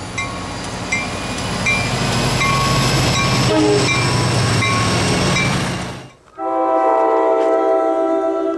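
A train passing close by, a steady low drone under wheels clicking over rail joints at an even pace, the noise growing louder. About six seconds in it cuts off abruptly and a train horn sounds, one steady chord of several notes held to the end.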